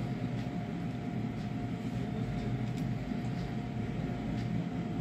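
Steady low hum and hiss of room background noise with a faint constant tone running through it.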